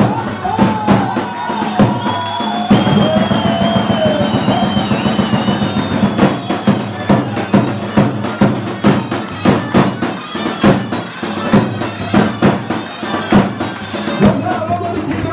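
Live Terekeme folk dance music: a reedy, winding melody over a held drone, driven by a steady drum beat.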